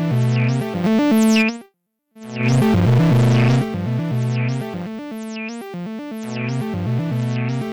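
Arturia Modular V3 software modular synthesizer playing a repeating sequence of pitched notes, each with a bright sweeping tone, cutting out completely for a moment about two seconds in and then starting again.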